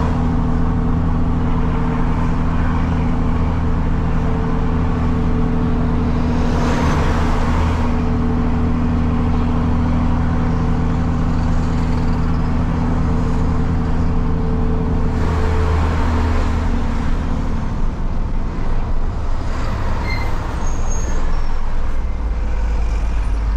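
Diesel truck with a straight-pipe exhaust running steadily under way, its engine drone heard from inside the cab, with two brief rushes of passing traffic. Near the end the steady engine note drops away to a rougher low rumble.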